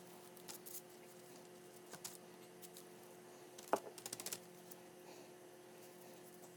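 Small clicks and taps of objects being handled on a work surface. There is one sharp click a little before four seconds in, then a quick run of light ticks, over a steady faint hum.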